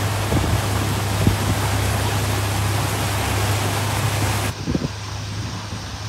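Boat motor running steadily with a low hum, under a loud rushing hiss that stops about four and a half seconds in.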